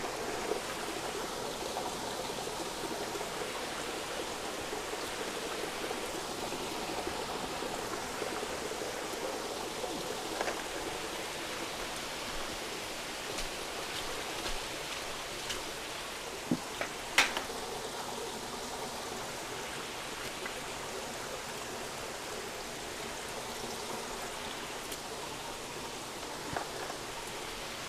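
Water running and trickling steadily through a recirculating aquaculture system into rows of fish vats, with a few brief sharp clicks around the middle.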